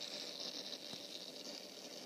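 Steady hiss, with one faint click about a second in.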